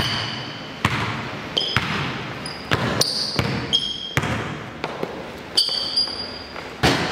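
Basketball game play: a ball bouncing and thudding on the court at irregular intervals, with short, high-pitched sneaker squeaks between the bounces.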